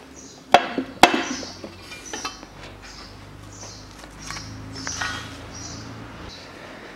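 Metal engine parts and tools being handled during teardown: two sharp knocks about half a second and a second in, then lighter clinks and knocks.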